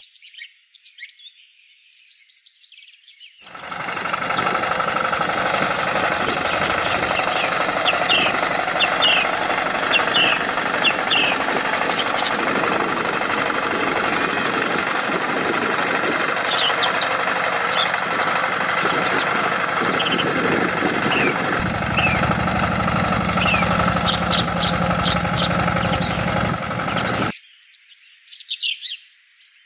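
Tractor running steadily while it ploughs, with birds chirping over it. The running starts about three and a half seconds in, grows heavier about three-quarters of the way through, and cuts off suddenly near the end, leaving only the birds.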